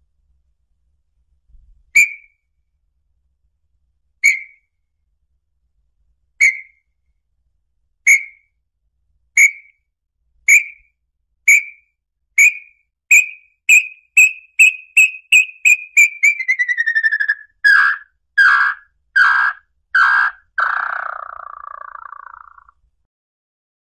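Small-billed tinamou (inhambu-chororó) song: clear whistled notes, about two seconds apart at first, that come faster and faster and climb slightly in pitch. Around 16 s in they drop lower into a quick run of louder notes and end in a short falling warble.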